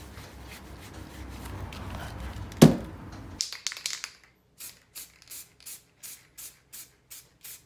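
A single knock, then a brief hiss of clear finishing spray from an aerosol can. After it, evenly spaced ticks come about two to three a second: the start of a backing music beat.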